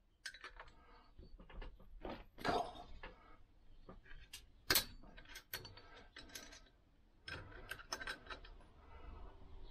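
Light, irregular metallic clicks and clinks of two open-ended spanners on a pair of locked nuts on the exhaust stud of a Lambretta cylinder barrel, as the double nuts are worked loose; the sharpest click comes about four and a half seconds in.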